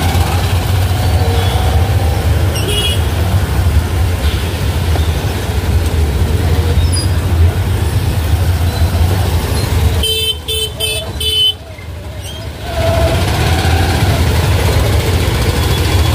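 Road traffic with vehicles honking over a steady low rumble; about ten seconds in a horn gives a quick run of about four short beeps.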